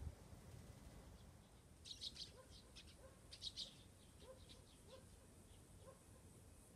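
Faint outdoor quiet with small birds chirping: two brief clusters of high chirps about two and three and a half seconds in, and a run of softer, lower call notes about every half second. A short thump right at the start.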